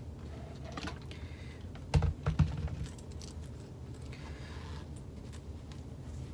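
A clothes iron set down with a few knocks about two seconds in, followed by light clicks and the rustle of fabric being handled, over a steady low hum.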